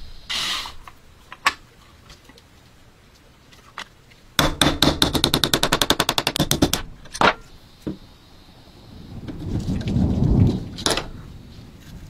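A brass punch being struck against a small metal gun frame to drive out a broken screw: a rapid run of sharp metallic taps, about a dozen a second, lasting a couple of seconds. Single knocks come before and after it, and a rougher scraping noise swells and fades near the end.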